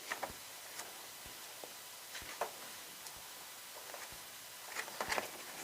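Faint, scattered light taps and clicks, with a quicker cluster of them near the end.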